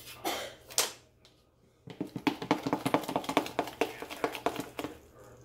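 A pastry brush swept across a griddle plate in a few strokes. After a short pause comes rapid clicking, about eight a second for some three seconds: a utensil knocking inside a plastic measuring cup as pancake batter is stirred.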